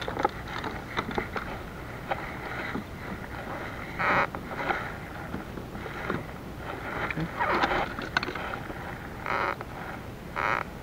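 Small waves slapping against a plastic kayak's hull: a steady watery hiss with several short splashes a second or two apart.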